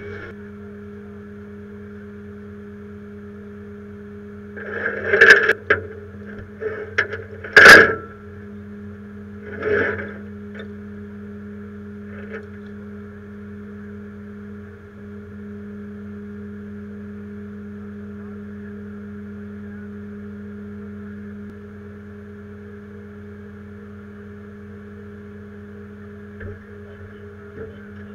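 Rollback tow truck's engine running steadily at idle, a constant hum, with three loud metal clanks about five, eight and ten seconds in and a few light knocks later.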